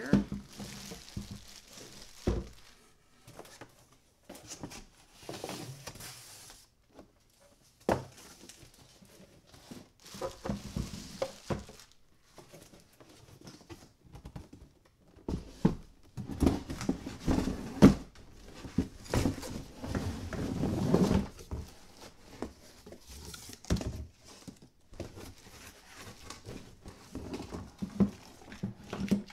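Packaging being handled: plastic wrap crinkling and a long cardboard box rustling and scraping, with scattered thuds and knocks as things are set down on a wooden workbench. The handling is busiest and loudest about two-thirds of the way through.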